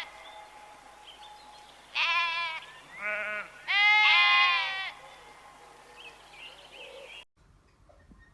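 Bleating livestock: three bleats, a short one about two seconds in, a shorter one right after and a longer one around four seconds in, over faint background noise that cuts off abruptly near the end.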